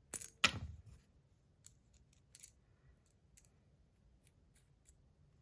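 Fidget spinner on an R188 bearing: two sharp clicks as it is handled and flicked into a spin, then a quiet spin with a few faint scattered ticks.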